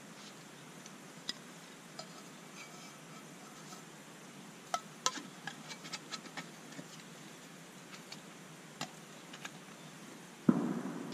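Small camp cooking gear being handled: scattered light clicks and clinks of metal pieces, most of them in a quick run around the middle. Near the end a single sudden dull thump, the loudest sound, dies away over about a second.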